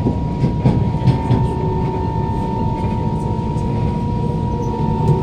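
Interior of a Kawasaki Heavy Industries C151 MRT car running at steady speed: a steady whine from the GTO-VVVF traction motor over the rumble of wheels on rail, with a few clicks from the wheels in the first second and a half.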